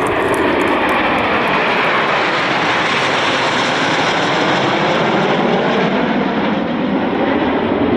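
A formation of CT-114 Tutor jet trainers flying past overhead, their turbojets making a steady rushing roar. The sharpest high hiss fades after about two seconds as the formation draws away.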